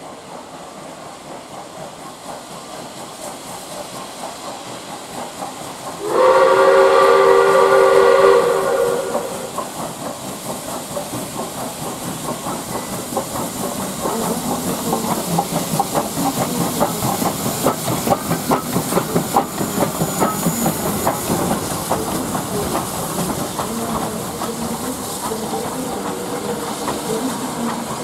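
Soviet Er-class 0-10-0 steam locomotive under way with steady steam hiss. About six seconds in it gives one long steam-whistle blast of several tones together, lasting about three seconds and the loudest sound here. Then comes a rapid rhythmic clatter of exhaust and wheels, growing louder as the engine and its coaches move past.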